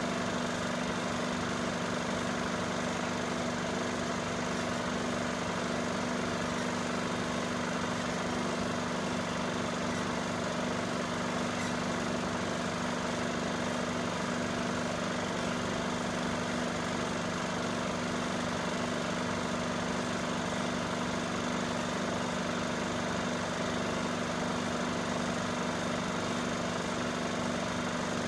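Cine film projector running: a steady mechanical hum that does not change.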